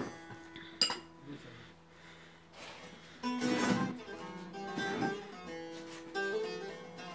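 Bağlama, the Turkish long-necked lute, being played: a folk melody of ringing sustained notes with louder strummed passages about halfway through. A single sharp click about a second in.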